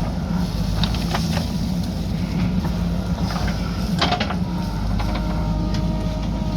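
JCB backhoe loader's diesel engine running steadily, with a faint steady high tone over it and a few sharp clinks and knocks, the strongest about four seconds in.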